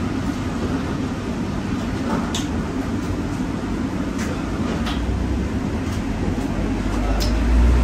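Steady low rumble of background machinery, like a kitchen extractor hood running, with a few light clicks and a heavier low thumping near the end.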